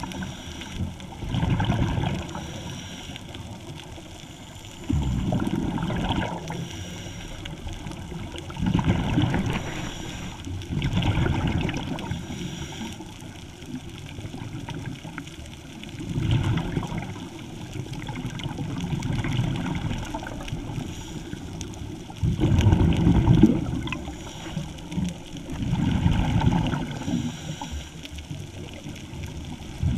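Scuba regulator exhaust bubbles gurgling, heard underwater: a surge of bubbles every few seconds as a diver breathes out, with quieter stretches between breaths.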